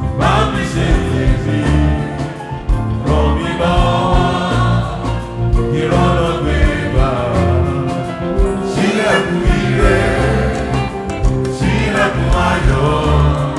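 Choir singing a Yoruba gospel hymn in call-and-response phrases over a band with a heavy steady bass and keyboard.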